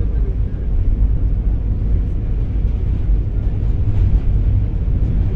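Steady low rumble of a New York City Q train subway car running, heard from inside the car.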